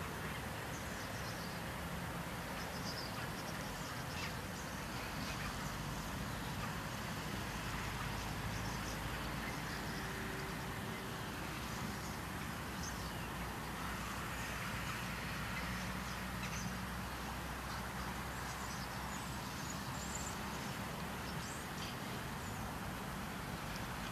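Swallows twittering in flight: short, scattered high chirps throughout, over a steady low rumble of distant traffic.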